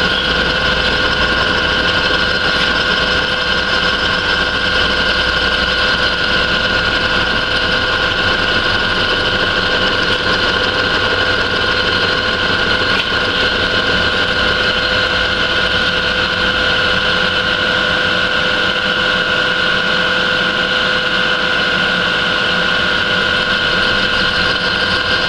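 Vertical milling machine running an end mill through a slow, steady feed cut across four nuts clamped together in the vise. It makes an even machine hum with a steady high whine, unchanged throughout.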